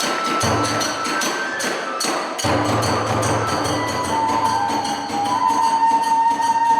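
Kagura festival music: a taiko drum beating in a steady rhythm with clashing tebyoshi hand cymbals, and a kagura flute holding a long high note from about halfway through.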